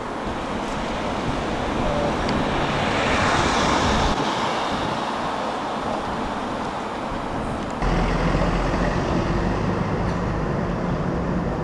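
Outdoor urban traffic noise, with a vehicle passing that swells and fades about three to four seconds in. Near eight seconds the sound changes abruptly to a steadier background with a stronger low rumble.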